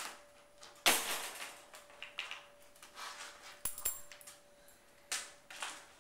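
Ice cube knocking and skidding on a tile floor as a puppy pushes it around, a few sharp knocks that tail off, the loudest about a second in and another near the end. A bright metallic click just before the four-second mark.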